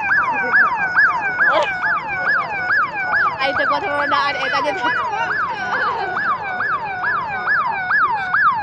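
Electronic siren sounding a fast repeating yelp, about three cycles a second, each one jumping up and sliding back down in pitch.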